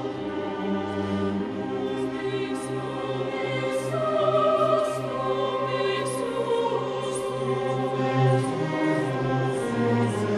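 Mixed choir singing a Latin Requiem text with orchestral accompaniment, in sustained chords with crisp consonants. A low note pulses about two or three times a second underneath through the middle of the passage.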